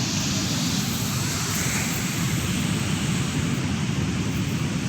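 Steady rushing noise of ocean surf breaking on the beach, with a fluttering low rumble of wind on the microphone.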